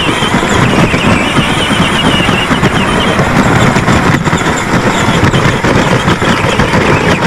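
Modded John Deere Gator ride-on toy, powered by a DeWalt battery, driving along: a steady electric motor and gear whine over the rumble and rattle of its wheels on the dirt.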